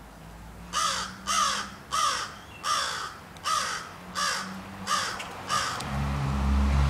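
A crow cawing eight times in a steady series, about 0.7 s apart, each caw falling slightly in pitch. A low steady rumble starts near the end.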